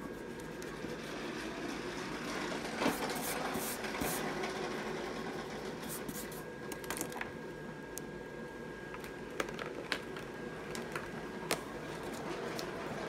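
Pen scratching and tapping on sketchbook paper as a drawing is inked, with a few sharp clicks and a steady faint hum underneath.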